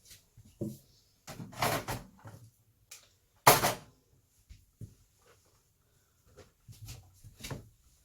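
Kitchen drawers and cupboards being opened, rummaged through and shut. There are scattered short knocks and shuffles, and one loud bump about three and a half seconds in.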